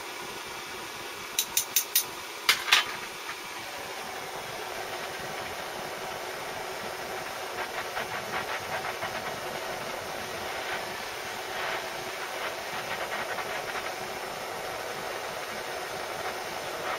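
Gas blowtorch flame hissing steadily while a fishing lead weight is heated in it. There is a quick run of sharp clicks about a second and a half in, and the hiss turns a little louder and crackly partway through.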